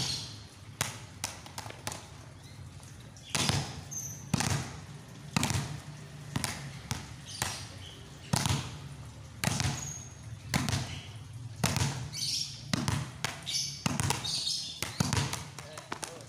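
Balls bouncing on a concrete floor: a volleyball struck down by hand and a child's rubber ball bounced, making repeated sharp thuds about one a second, some in quick pairs.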